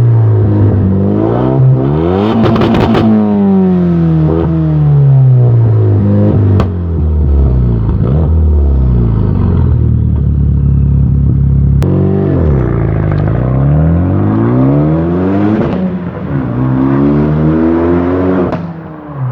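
Renault Mégane RS 265's turbocharged four-cylinder engine through an open Milltek exhaust with no mufflers, revving up and dropping back several times. A burst of crackles comes about two seconds in, and sharp single pops from the exhaust come later.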